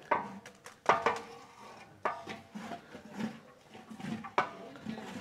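Metal cookware and utensils clanking: four sharp clinks with a short ring, the first three close together and the last a couple of seconds later.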